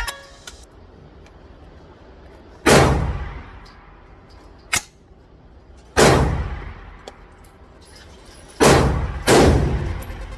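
Rifle shots at an indoor shooting range, each loud crack followed by an echoing tail. There are four shots a few seconds apart, the last two close together, and a shorter, sharper crack in between.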